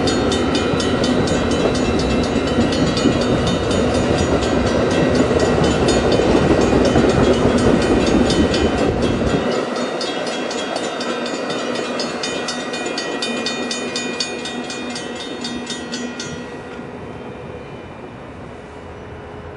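Amtrak Superliner bi-level passenger cars rolling past on a curve, their wheels clicking over the rails in a quick, even rhythm. The deep rumble drops away about halfway through, the clicking stops near the end as the last car goes by, and the sound fades to a faint distant rumble.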